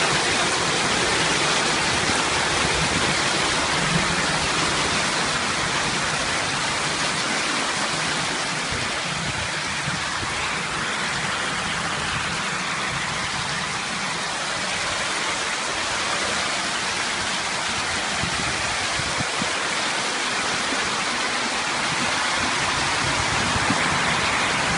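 Flash-flood water running over a paved street in a steady rush.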